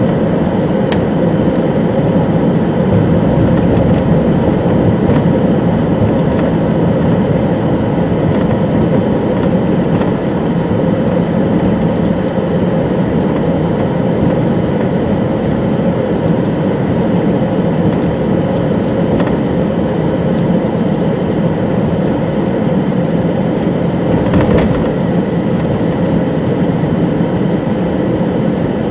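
Steady rumbling noise of a moving vehicle, unchanging throughout.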